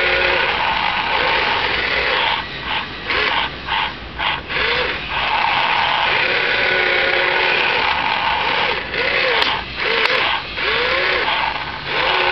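Small electric gear motors of a toy radio-controlled wheeled excavator whirring as the boom and arm move, the pitch rising and falling as each motor starts and stops. Twice the whirring breaks into a run of short on-off bursts.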